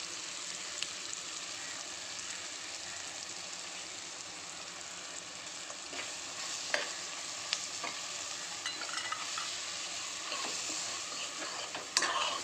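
Onions, tomatoes and garlic sizzling steadily in sesame oil in a pressure pan, while a steel ladle stirs spice powder through them. The ladle scrapes and clinks against the pan several times in the second half.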